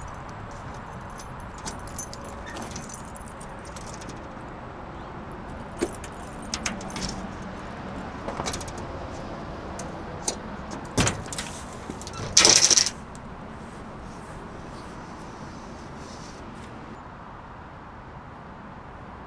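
Scattered light metal clinks and jingles of gear being handled, with a few sharp knocks and a short, loud hissing burst about twelve seconds in, over a steady outdoor background hum.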